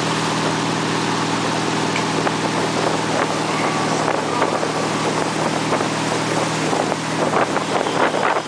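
Motorboat engine running steadily at speed under the loud rush of water and wind. Wind buffets the microphone in gusts near the end.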